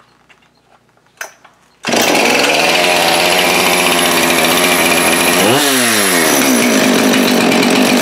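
Two-stroke chainsaw starting up about two seconds in and running loud and fast; a little past halfway its engine note shifts abruptly as brake cleaner is sprayed on the PTO (clutch) side. This is the brake-clean air-leak test, which here points to a failing crankshaft seal or bearing on that side.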